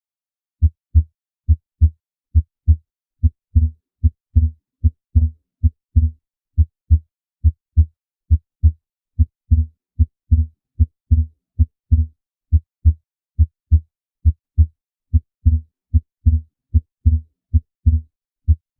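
Recorded heart sounds: paired lub-dub beats, low and thudding, repeating steadily about 70 times a minute.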